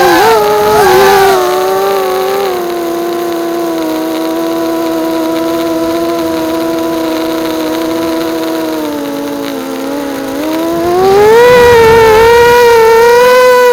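Small FPV racing quadcopter's brushless motors and propellers whining with throttle changes. The pitch wavers at first, then eases down to a lower, quieter steady note for several seconds, and rises and gets louder again about eleven seconds in.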